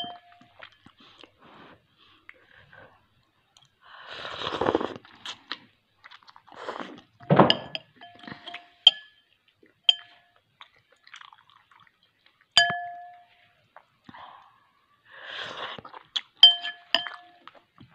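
Metal spoon clinking against a soup bowl about half a dozen times, each clink ringing briefly, between slurps of hot fish soup.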